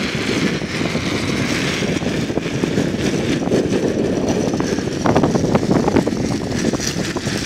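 Steady rumble of a moving vehicle rolling along an asphalt road, mostly road and wind noise.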